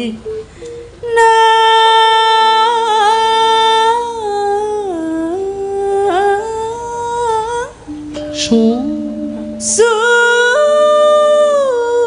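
A female sinden sings a melismatic Javanese vocal line in long, wavering held notes over soft, steady notes from gamelan instruments. The voice comes in about a second in and breaks off briefly past the middle.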